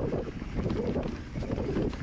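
Mountain bike riding a rough trail: wind buffeting the microphone over a steady rumble, with many small rattles and knocks from the bike.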